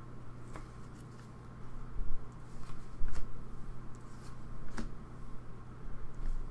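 Hockey trading cards being handled and flipped through by hand: a few light clicks and slides of card stock, over a steady low hum.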